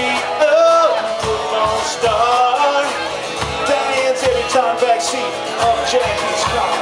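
Live rock band playing: a male lead vocal over acoustic and electric guitars, bass and a drum kit keeping the beat.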